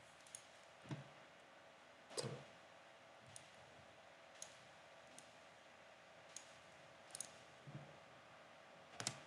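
Computer mouse clicking: about eight or nine short single clicks at uneven intervals, one of them a quick double, over faint room hiss.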